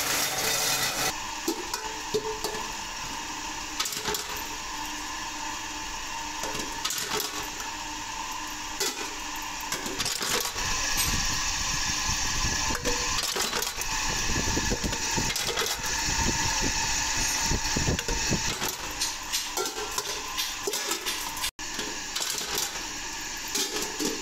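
Stainless steel utensil workshop noise: machinery running steadily under a frequent clatter of metallic clicks and knocks from steel bowls and a flywheel power press.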